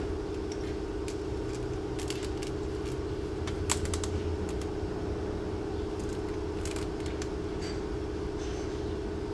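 A few light metallic clicks and clinks of hand tools and fasteners being worked in a car's engine bay, over a steady hum that runs throughout.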